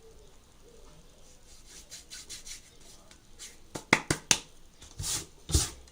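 A spoon or similar utensil scraping and rubbing in a bowl as flour is added to a slime mixture, with a few sharp taps about four seconds in and longer scraping strokes near the end.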